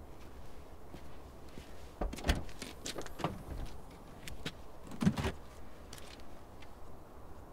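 A small hatchback's boot being opened and searched: a run of clicks and clunks from the latch and lid about two seconds in, then another clunk about five seconds in as something inside the boot is moved.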